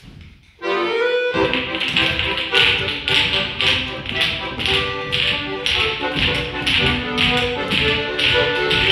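Folk-style dance music with held instrumental notes and a sharp, regular tapping on the beat, about two taps a second, starting about a second in.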